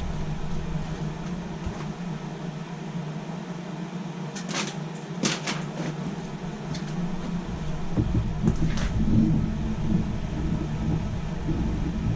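Steady low hum of shop machinery, with a few sharp clicks and knocks of hand-handled parts spread through the middle, and a heavier low rumble coming in about eight seconds in.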